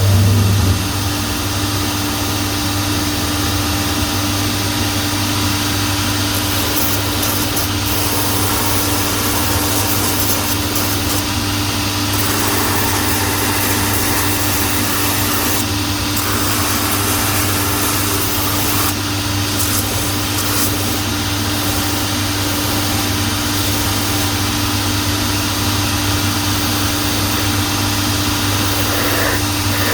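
Shoe repair finishing machine running with a steady hum, its sanding wheel grinding the edge of the newly stitched sole and heel in patches of brighter, hissing contact noise.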